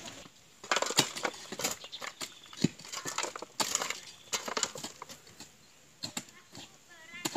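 Hoes and shovels chopping into and scraping stony soil, an irregular run of sharp strikes.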